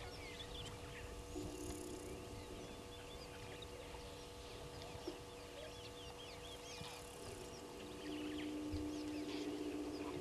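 Wild birds chirping and calling, many short notes throughout, over a low steady hum that swells and fades.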